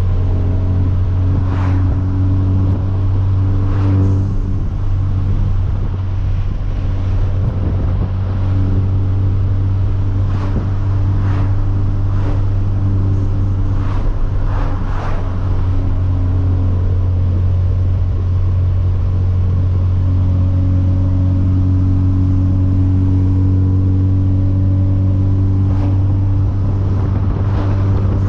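Hyundai Veloster Turbo's turbocharged 1.6-litre four-cylinder, with a catless downpipe, running at a steady cruise, heard from inside the car. The engine drone is even, with a few brief sharper noises scattered over it.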